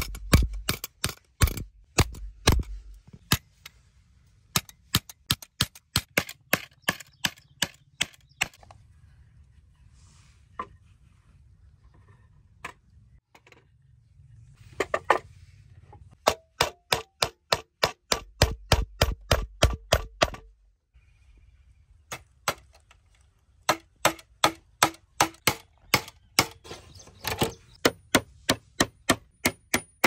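Hammer driving nails through steel butt hinges into wooden planks: runs of sharp blows about three a second, broken by short pauses between nails. Some blows ring with a metallic tone.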